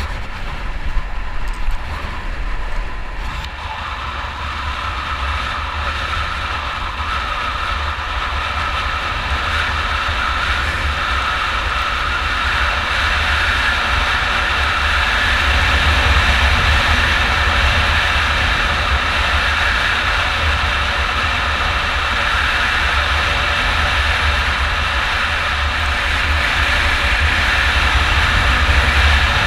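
Yamaha 600 cc single-cylinder dirt bike engine running steadily while riding, with heavy wind rumble on the microphone. Engine and wind grow gradually louder through the first half as speed builds, then hold steady.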